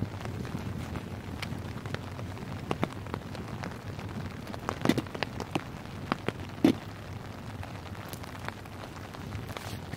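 Steady rain pattering on a tarp shelter, a dense hiss full of scattered small ticks of drops. Two louder sharp pops stand out about five and nearly seven seconds in.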